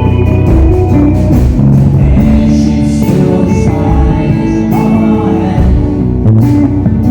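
Live band music with a singer, guitar and a steady drum beat.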